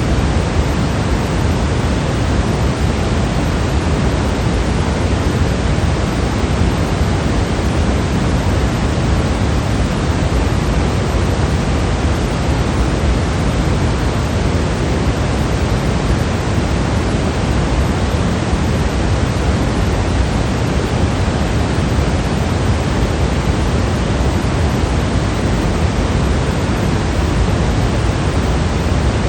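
Steady, unchanging white noise with a heavier low end, sounding like a white noise machine's hiss.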